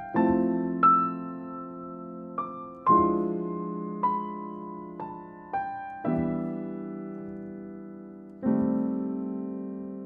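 Slow, gentle piano background music: held low chords with single melody notes above, each note struck and left to fade.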